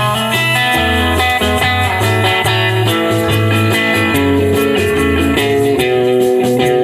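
Live band playing an instrumental break, with guitar carrying held melodic notes over a steady bass line.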